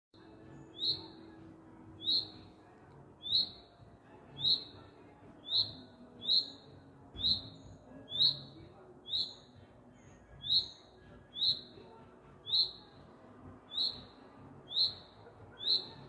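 A songbird calling loudly and insistently: one short, high chirp repeated about once a second, over and over, the call of a bird trying to attract a mate.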